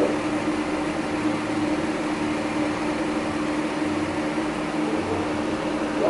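A steady machine hum: one constant low tone, with a fainter one beneath it, over an even fan-like hiss.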